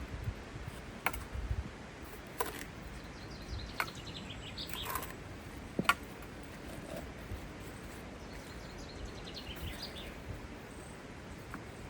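Small birds chirping, a quick descending run of short notes twice, over steady outdoor background noise, with a few sharp clicks scattered through.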